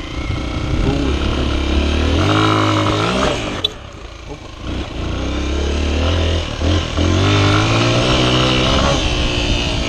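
Honda XR 125 single-cylinder four-stroke engine pulling off-road with the revs climbing. It eases off for about a second near the middle, with a single sharp click, then climbs again.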